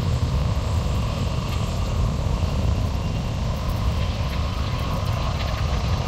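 Airbus A340-300's four CFM56 jet engines running, a steady low rumble with a noisy hiss above it.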